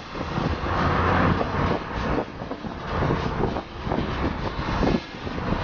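Wind buffeting the microphone over the engine and road noise of a moving vehicle, swelling and dropping in uneven gusts.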